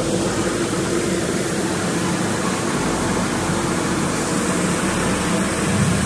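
Steady drone of running grain-handling machinery: a grain dryer and a swing auger unloading shelled corn from a gravity wagon.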